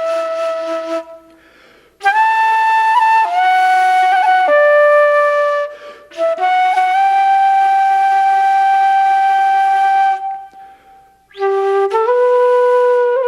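Unaccompanied solo wind instrument of the flute family playing a slow, Irish-style melody. It plays long held notes with small slides between some of them, and the phrases are broken by three short pauses.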